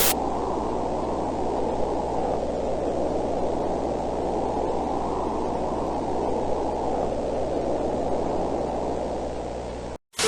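Steady, muffled static hiss with a low electrical hum beneath it, an analog-horror broadcast noise effect. It sags slightly and then cuts off suddenly near the end.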